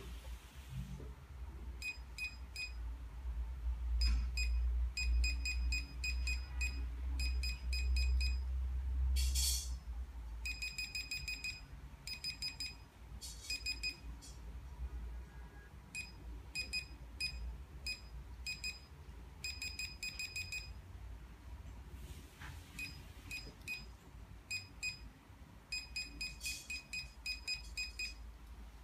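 RTscan RT220 2D/QR barcode scanner beeping: short, high-pitched beeps in quick runs of several at a time, each beep marking a successful decode of a barcode. A steady low rumble underneath and a few brief rustles.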